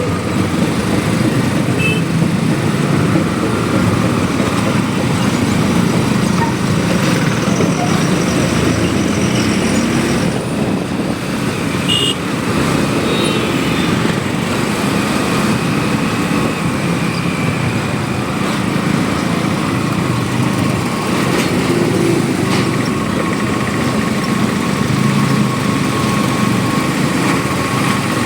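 Motorcycle riding through traffic: a steady mix of engine, road and wind noise with other vehicles around it. A couple of short high beeps come about two seconds in and again near the middle, and a faint steady tone sounds in the last few seconds.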